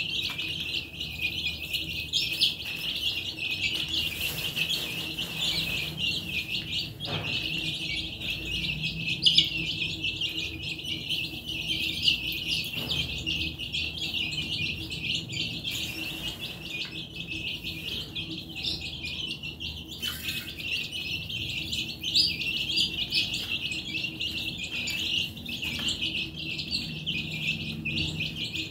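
A flock of chicken chicks peeping all together, many high peeps overlapping without a break.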